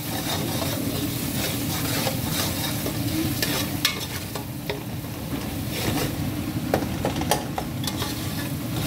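Chicken broth at a rolling boil in an aluminium pot on a gas burner: steady bubbling with scattered small pops.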